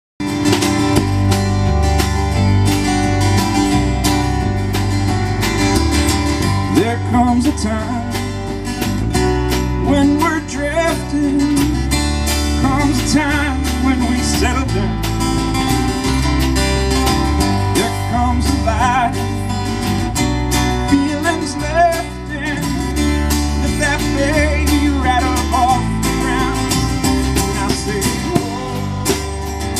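Live band playing country music on acoustic guitar, banjo, upright bass and drum kit through a small PA, with a man singing lead from several seconds in.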